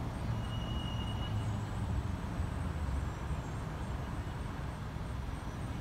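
Car engine idling, heard from inside the car: a steady low rumble with some traffic noise, and a short high tone about half a second in.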